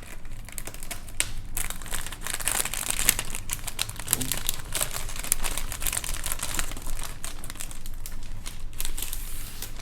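Plastic packaging of a model kit crinkling and rustling continuously as it is handled, then stopping abruptly at the end.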